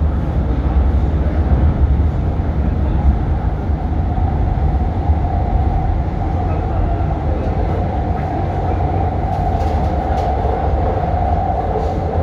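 São Paulo metro train heard from on board, running between stations with a steady low rumble. A steady whine comes in about a third of the way through and grows louder near the end.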